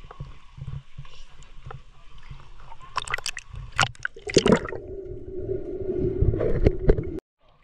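Water sloshing and gurgling, with a few sharp knocks about three to four and a half seconds in. A steady low tone and rumble follow and cut off suddenly near the end.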